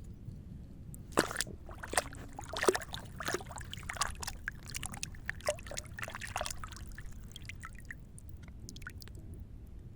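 Water splashing and trickling, with a dense run of irregular clicks, knocks and short plinks starting about a second in and thinning out to a few scattered ticks after about seven seconds.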